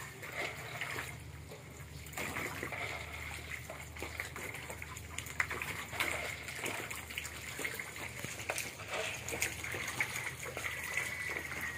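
Shallow water trickling and lapping, with many small splashes and clicks scattered through it.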